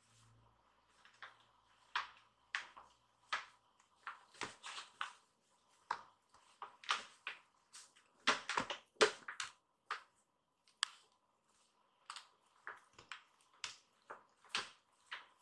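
Irregular soft taps, scuffs and rustles of a kitten pouncing on tatami mats and batting and grabbing a stuffed cloth mouse toy on a string, with a cluster of louder ones about eight to nine seconds in.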